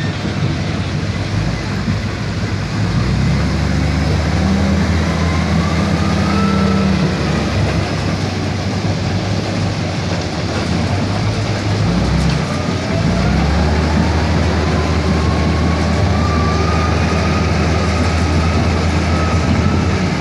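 Dump truck engine running under load, its note rising about 3 s in, dropping briefly about 12 seconds in and rising again, with a thin whine climbing alongside it.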